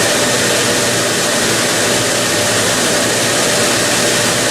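Gas-fired steam boiler's combustion-air inducer fan running with a steady whooshing hum during the ignition stage: the spark igniter is on and the gas has not yet been turned on.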